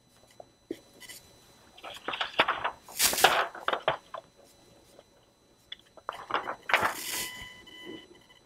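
Paper handled and slid across a document camera's stage, with two louder rustling scrapes about three and seven seconds in.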